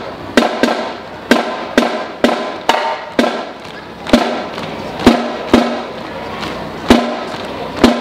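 Marching band drums playing: sharp, ringing strikes in an uneven pattern, about one or two a second, some with a low tuned ring after them, over a steady band background.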